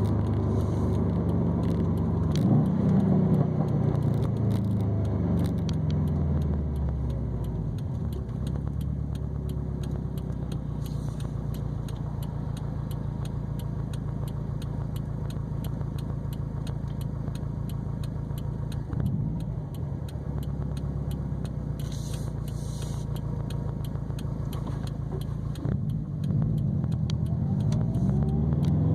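2020 Subaru WRX STI's turbocharged 2.5-litre flat-four running through an ETS non-resonated catback exhaust and a Grimmspeed catted downpipe. The engine note falls over the first several seconds, holds a steady low drone through the middle, then rises again near the end as the revs pick up.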